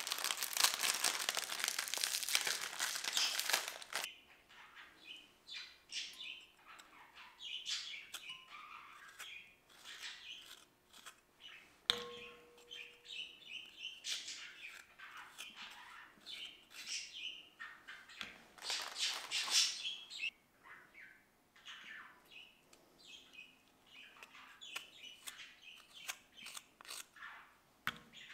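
Plastic Oreo wrapper crinkling for the first few seconds, then a table knife scraping the cream filling off Oreo biscuits in a long run of short, high, squeaky scrapes, with one sharp click partway through.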